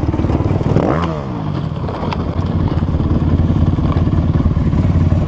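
Off-road engine running close by with a rapid steady pulse. About a second in, the dirt bike on the slope ahead gives a brief rev that dips and rises, before the bike goes down.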